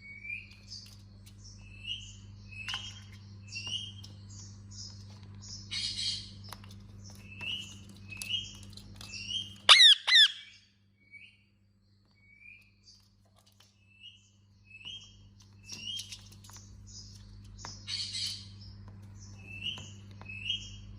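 Indian ringneck parakeet chirping: short chirps repeated roughly once a second, a harsh squawk about six seconds in and again near the end, and a loud burst of shrill calls about ten seconds in, the loudest moment. A steady low hum underneath drops out for a few seconds after the loud calls.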